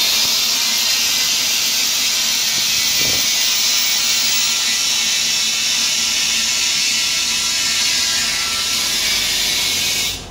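Compressed air hissing out of an air compressor tank's drain valve as the tank is bled down. The hiss is very loud and steady, then cuts off sharply near the end.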